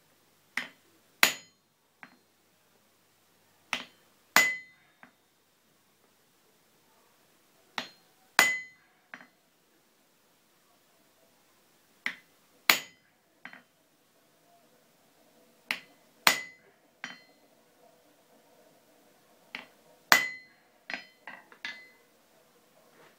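Hand hammer striking a chisel held against hot steel on an anvil: a light tap then one hard ringing blow, repeated six times about every four seconds, each followed by a small tick. Near the end a few lighter metal clinks as tools are set down on the anvil.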